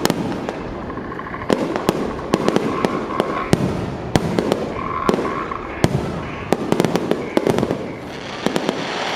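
Fireworks display going off: a dense, irregular run of bangs and crackles from many shells bursting in quick succession, over a continuous rumble of overlapping bursts.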